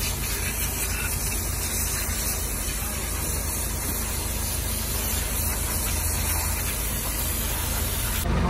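Compressed-air spray gun hissing steadily as it blasts a mist of cleaning fluid over an engine crankshaft.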